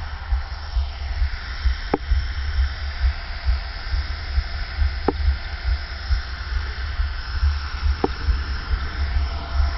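HK-450 electric RC helicopter running with its main rotor spun up as it lifts into a low hover: a steady motor whine and rotor whoosh. A strong, uneven low rumble runs underneath, and there are three short clicks about three seconds apart.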